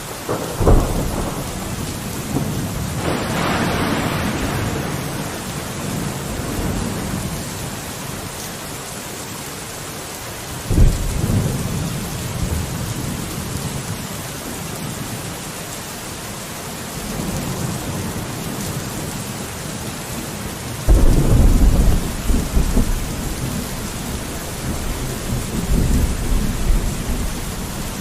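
Steady rain with rolling thunder: a low rumble breaks in right at the start, another about eleven seconds in, and a third, the loudest and longest, about twenty-one seconds in.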